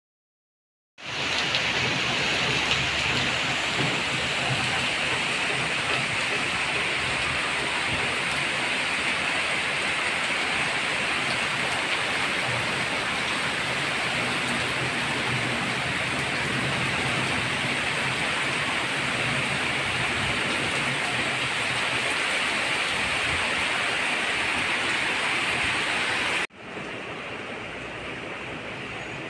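Steady rain falling, an even hiss. It starts after about a second of silence, and near the end it cuts to quieter rain.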